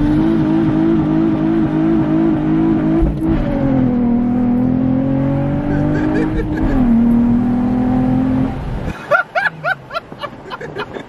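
Nissan 350Z's 3.5-litre V6 heard from inside the cabin under full throttle in a hard launch with wheelspin. The revs climb and hold high, drop in pitch twice with gear changes about three and seven seconds in, and cut off sharply as the driver lifts about nine seconds in.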